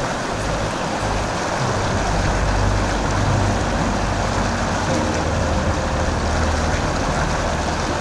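Motorcycle running steadily, its engine a low drone beneath a loud, even rushing noise.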